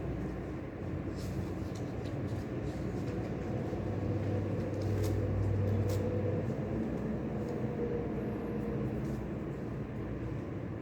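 Steady low rumble of room ambience, with a low hum that swells for a couple of seconds midway and a few faint ticks.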